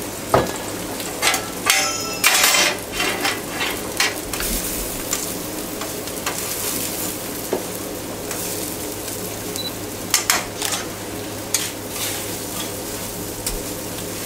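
Squid and vegetables sizzling in olive oil on a hot flat-top plancha, a steady frying hiss over a low steady hum. Metal tongs click and scrape against the griddle several times, in a burst about two seconds in and again about ten seconds in.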